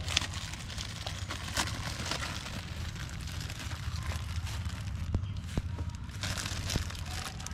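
Plastic wrapper of a sliced bread loaf crinkling and rustling as it is handled and slices are pulled out, with irregular crackles and a few sharp clicks, over a steady low rumble.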